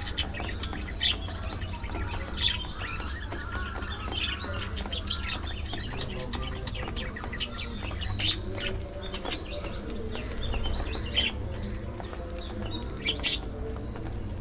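Budgerigars chirping and chattering: many short, sharp chirps, the loudest about 8 and 13 seconds in, with softer warbling between, over a steady low rumble.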